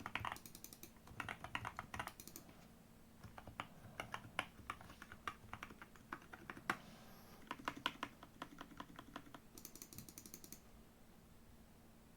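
Typing on a GK68 mechanical keyboard with JWK T1 Black linear switches and XVX keycaps: keystrokes come in quick runs and single presses, then die away near the end.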